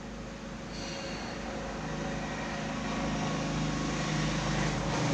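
Road traffic: a motor vehicle's engine and tyre noise growing steadily louder as it approaches.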